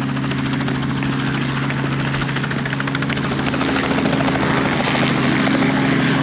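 Sightseeing helicopter running steadily: the rotor's fast, even chop over the engine's low hum. It grows a little louder about four seconds in.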